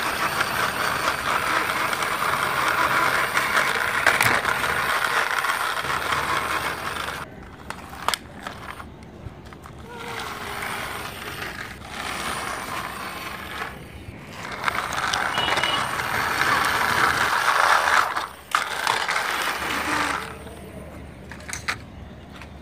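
Plastic wheels of a toy police jeep rolling and rattling over a rough concrete wall top as it is pushed by hand. The rattle comes in several spells that stop and start.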